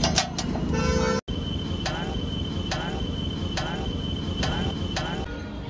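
A metal blade striking a large flat iron griddle in a regular rhythm, a little under a second between strikes, as burger buns are sliced on it. A faint steady high whine sounds alongside and stops near the end.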